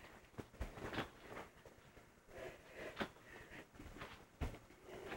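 Faint, scattered knocks and dull thumps: a low thump about half a second in and a heavier one near the end, with quiet rustling between.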